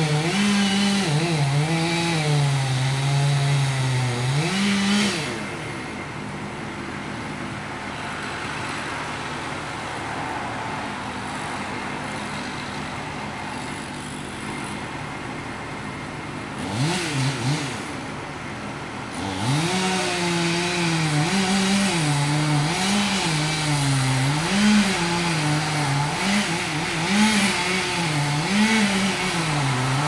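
Chainsaw cutting into a tree trunk, its engine speeding up and slowing again and again as it works the cut. It drops away about five seconds in, revs briefly near 17 s, and comes back strongly about 19 s in.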